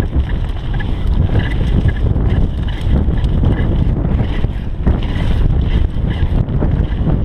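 Wind buffeting the camera microphone and mountain bike tyres rumbling over a dirt trail at speed, with the bike rattling and clicking over bumps throughout.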